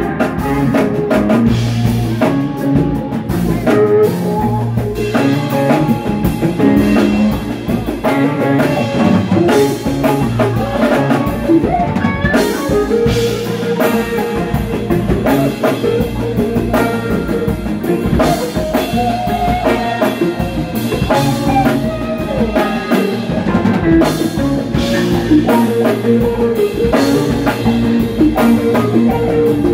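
A live jam band playing electric guitars over bass and a full drum kit, loud and continuous with a steady drum beat.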